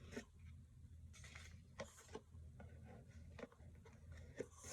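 Faint rustling and a few light taps and clicks of packaging being handled, with a slightly louder tap near the end.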